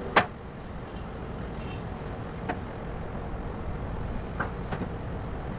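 A few sharp clicks and taps from hands working on a condensing unit's fan motor and its mounting, the first and loudest right at the start, another about two and a half seconds in and fainter ones near the end, over a steady low rumble.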